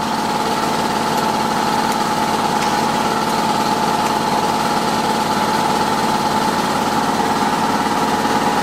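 Electric air compressor running steadily under load, filling its tank with a constant hum.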